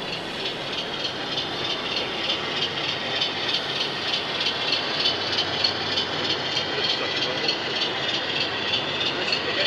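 Model freight train rolling past on layout track: a steady metallic rattle of the wagons' wheels, with frequent small clicks over the rail joints that grow louder a couple of seconds in as the wagons pass close.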